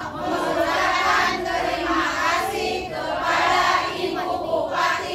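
A crowd of many voices chanting together in phrases of a second or two.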